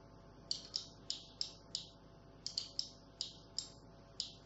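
Computer mouse buttons clicking about ten times in short uneven runs, each click a quick double tick as the button presses and releases.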